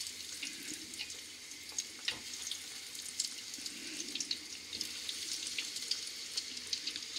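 Egg-and-breadcrumb-coated artichoke stems frying in hot seed oil in a small pot: a steady sizzle with fine, quick crackling, as more pieces are dropped in.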